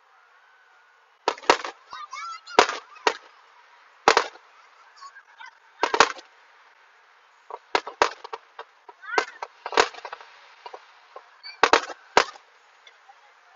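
Aerial firework shells bursting: about a dozen sharp bangs at irregular intervals, often in quick pairs, with brief wavering higher-pitched sounds between some of them.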